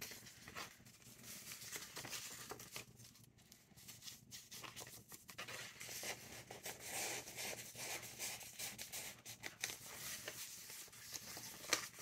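Faint paper rustling and crinkling as the loose paper inserts and pages of a handmade junk journal are handled, tucked into a pocket and turned.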